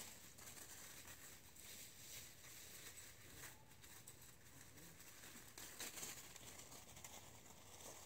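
Near silence: faint outdoor background with a couple of soft, brief rustles.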